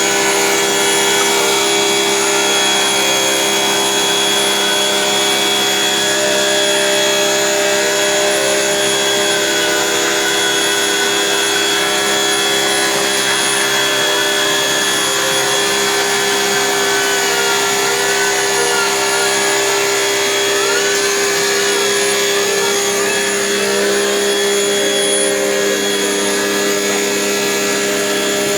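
A machine's motor running steadily at an even pitch, without pause.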